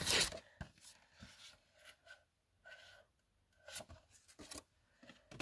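Clear plastic binder sleeves rustling as photo cards are handled and slid in and out of the pockets: a short louder rustle at the start, then soft scattered scrapes and small ticks.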